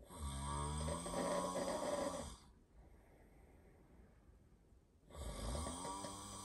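A sleeping person snoring: one long snore of about two and a half seconds at the start, and another beginning about five seconds in, each a low buzzing drone with a hissy edge.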